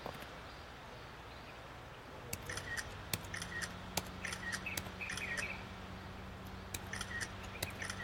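Birds chirping outdoors: two clusters of short, quick chirps with sharp clicks, the first starting about two seconds in and the second near the end, over a low steady hum that comes in about two seconds in.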